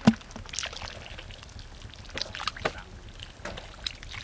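A catfish drops into a plastic bucket of muddy water with a sharp splash, then wet splashes and squelches follow as hands grope in shallow mud and water.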